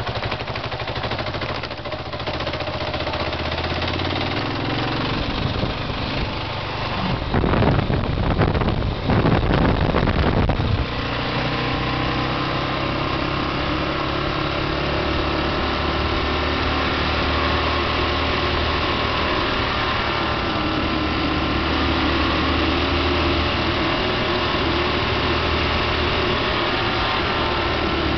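Kawasaki KLR650's single-cylinder four-stroke engine running under way on gravel, with a few seconds of louder rough rushing noise about seven seconds in; after that the engine note climbs a little and then holds steady.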